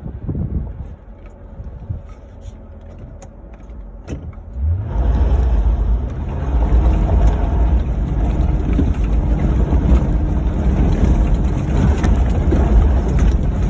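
Ford Crown Victoria's V8 engine. It is fairly quiet for the first few seconds, then revs up about four and a half seconds in and runs loud under load with a deep rumble as the car pulls away.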